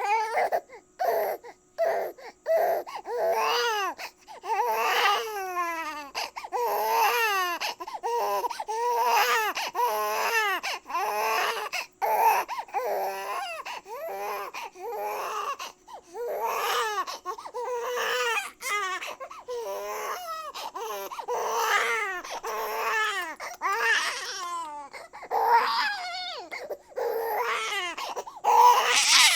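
Baby crying: a run of repeated wailing cries, each a second or so long, with short breaths between them, some cries bending down in pitch at the end.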